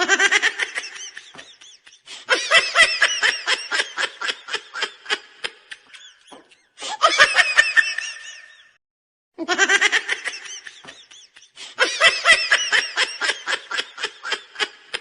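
Laughing sound effect played on a loop: bursts of rapid ha-ha-ha laughter broken by short silent gaps, the same sequence repeating about every nine seconds.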